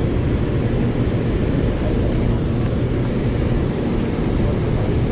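Steady rush of water pouring through a dam's open spillway gates into the river below, a constant low noise with no breaks.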